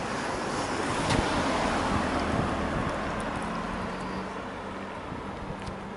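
A vehicle passing by: a rushing road noise that swells a second or two in and slowly fades, leaving a faint steady low hum.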